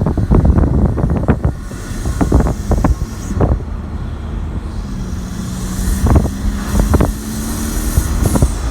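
Kia Stinger 2.0T driving, heard from inside the cabin, its engine and K&N cold air intake running under heavy low rumble, with wind buffeting the microphone in repeated knocks. A steady engine drone sets in about five seconds in and holds until shortly before the end.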